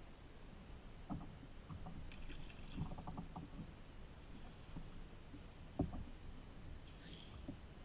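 Faint water and small knocks against a plastic fishing kayak's hull on calm water, with a cluster of light taps about three seconds in and the loudest thump about six seconds in.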